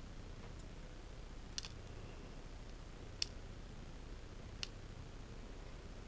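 Three small, sharp clicks about a second and a half apart, from a wax pillar candle being handled and turned in the hands, over a faint steady hiss.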